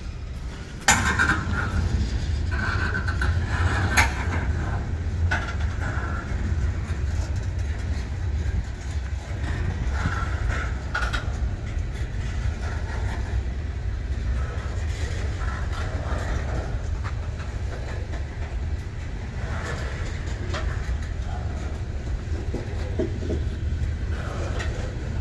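Freight cars of a CSX train rolling slowly past: a steady low rumble of wheels on rail with scattered clanks and squeals, including sharp knocks about a second in and again around four seconds.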